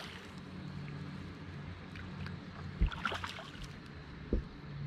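Electric trolling motor on a bass boat humming steadily, cutting out for about two seconds in the middle and starting again near the end. Two dull thumps on the deck, about three and four and a half seconds in, and a few light ticks.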